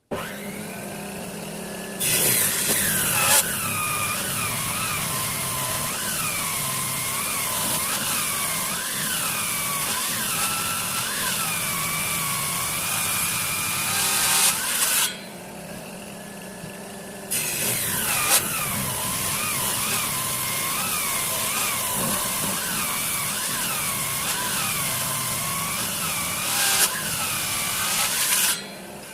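Electric woodworking power tool running and cutting wood in two long passes, its motor whine dipping and recovering in pitch about once a second as it takes the load. Between the passes the motor runs quieter, unloaded.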